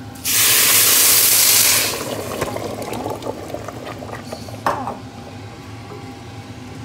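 Chicken stock poured into a hot steel pot of rice fried with garlic, hissing loudly for about a second and a half. It then settles to a quieter bubbling and crackling, with one sharp tap about five seconds in.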